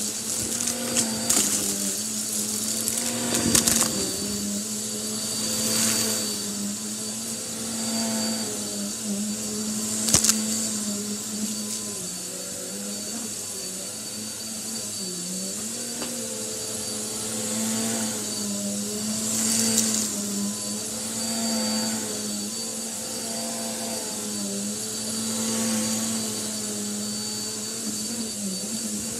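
Bissell upright vacuum cleaner running steadily over a rug, its motor tone dipping and wavering slightly as it is pushed back and forth. Debris crackles and rattles up through it in the first few seconds, with another sharp click about ten seconds in.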